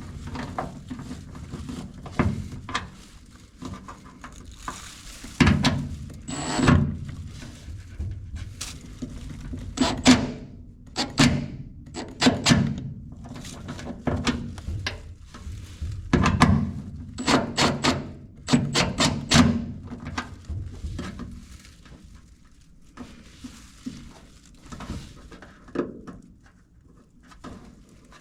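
Irregular knocks and clanks of hand tools and metal brackets as a fuel filter is bolted into place under a car.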